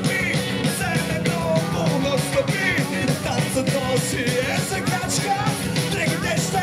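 Live rock band playing: electric guitars, bass guitar and drum kit, with a male singer's voice over them.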